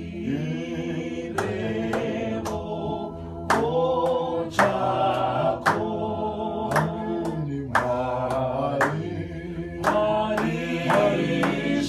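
A small mixed group of men and women singing a Shona hymn a cappella in harmony, with hand claps keeping the beat about once a second.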